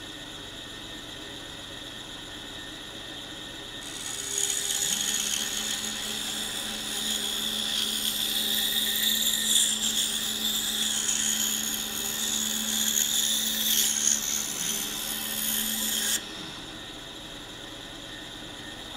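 Pegas scroll saw with a number 9 blade running, then cutting through a small block of buckeye wood from about four seconds in: a steady hiss of the cut with a low steady tone under it. The cut stops abruptly a few seconds before the end, leaving the saw running alone.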